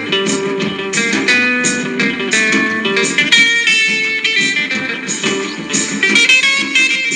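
Instrumental break of a late-1950s rock and roll record: a plucked electric guitar line over a steady beat, with no vocal.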